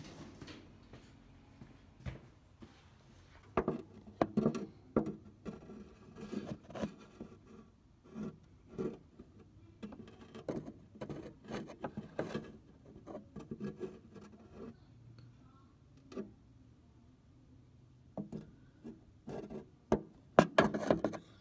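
Handling noise: irregular rubbing and light knocks as a camera is moved around against the sheet metal of a car's cowl. The noise eases off for a few seconds past the middle, and the loudest knocks come near the end.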